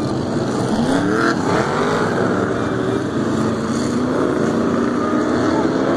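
Several winged oval-racing stock cars' engines running round the track, with more than one engine's pitch rising and falling at once as the cars accelerate and pass.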